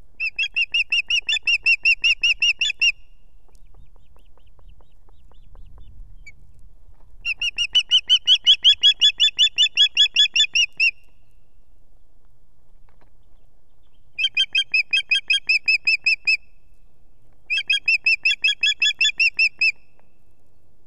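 Osprey calling in four bouts of rapid, high whistled notes, about five short piping notes a second, each bout lasting two to four seconds with pauses between.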